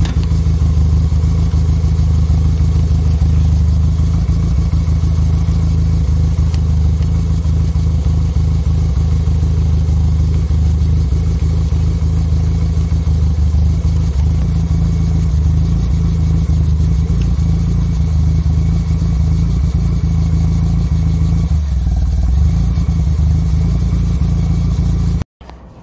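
Nissan A14 inline-four petrol engine idling steadily. The sound cuts off abruptly near the end.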